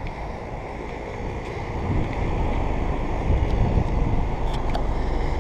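Outdoor central air-conditioning condenser units running, fan and scroll compressor giving a steady whooshing hum. Wind buffets the microphone, and the rumble gets louder about two seconds in.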